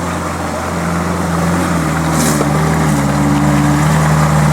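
Off-road 4x4's engine running with a steady note, getting slightly louder, with a brief hiss about two seconds in.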